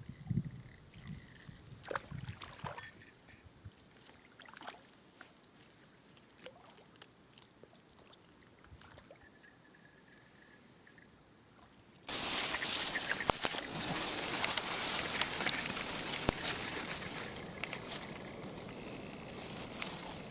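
Faint scattered clicks and rustles, then about twelve seconds in the steady rush of a mountain stream comes in abruptly and stays loud.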